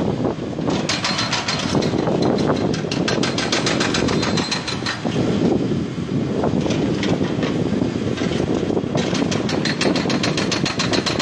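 Hydraulic breaker on a digger hammering at the concrete base of a minaret: a fast, even rattle of blows over the machine's running engine. It pauses briefly near the start and again about nine seconds in, then resumes.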